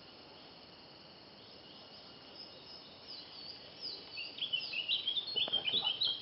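Spectacled bulbul calling: a quick run of short, high-pitched chirping notes that starts a couple of seconds in and grows louder near the end, over a faint steady hiss.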